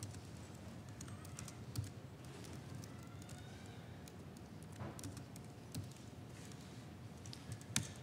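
Typing on a laptop keyboard: faint, irregular key clicks over quiet room tone.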